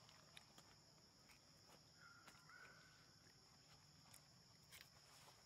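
Near silence: faint outdoor ambience with a steady high hiss, a few soft clicks, and a faint held high tone lasting about a second near the middle.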